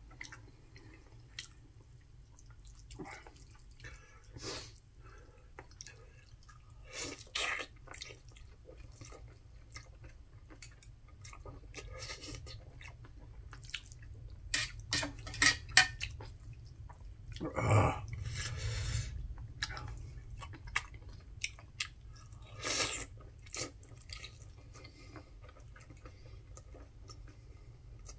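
Close-up eating sounds: a man chewing jjajangmyeon noodles, with many scattered small clicks of utensils and a few short louder bursts.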